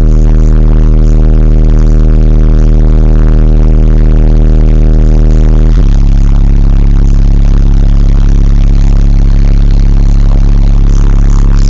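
Fi BL 18-inch subwoofer playing long held bass notes at very high volume, the pitch changing about six seconds in. The sound is heavily distorted because the loud bass overloads the phone's microphone.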